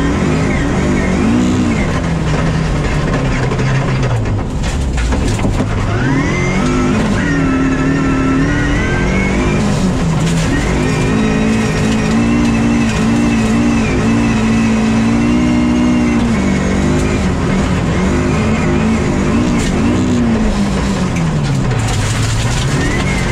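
Rally car's engine heard from inside the cabin, driven hard on a rally-sprint stage. The revs climb and drop again and again through gear changes, falling to a low point about four seconds in and again near the end before pulling up once more.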